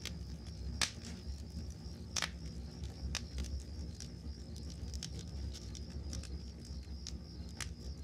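Wood campfire crackling and popping, with a few sharp pops standing out (about a second in and just after two seconds) over a low steady rumble of the flames. Crickets chirp steadily in the background.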